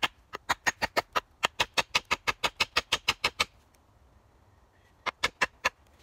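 Rapid, sharp wooden knocks of a stick striking a green-wood hatchet handle to seat the hatchet head on it, about six strikes a second for three seconds. After a pause comes a short run of about five more.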